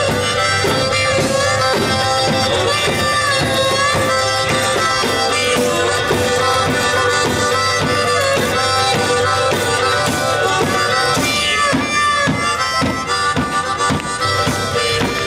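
A one-man band playing an instrumental passage: a steady drum beat worked by foot pedals under bass, guitar and a held, bending lead melody.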